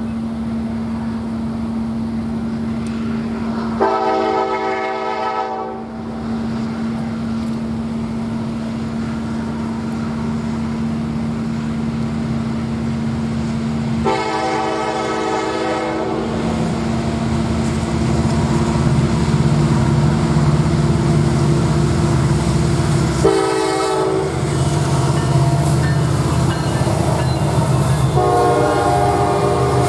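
Canadian National diesel locomotive's horn blowing the grade-crossing signal as the freight train approaches: long, long, short, then a final long blast as the locomotives pass. Under the horn, the engines' rumble and the train's running noise grow steadily louder.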